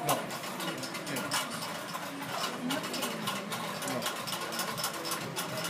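Hand pepper mill being twisted, a fast run of ratcheting grinding clicks.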